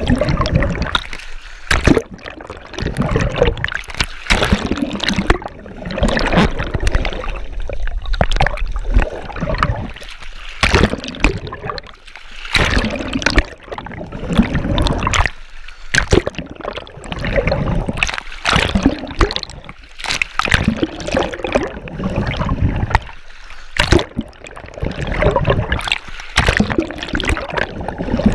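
A swimmer's arm strokes heard through an underwater camera housing: water sloshing and gurgling past the camera, swelling into a splashing surge of bubbles about every two seconds as each hand pulls through.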